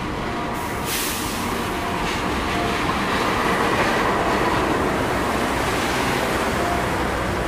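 A locomotive-hauled passenger train runs past at speed close by, with a steady heavy rumble and wheels clattering over the rails. A brief hissing rush comes about a second in.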